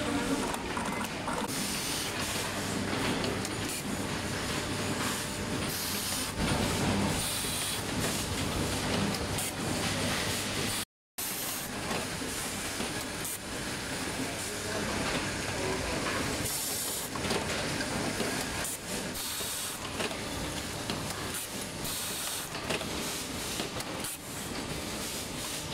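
Factory floor noise from cable-making machinery: a steady low hum under a hiss, with scattered faint clicks. The sound drops out briefly near the middle.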